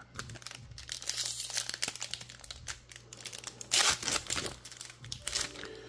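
Magic: The Gathering collector booster pack's foil wrapper crinkling as it is handled and torn open, with a louder rip just before four seconds in.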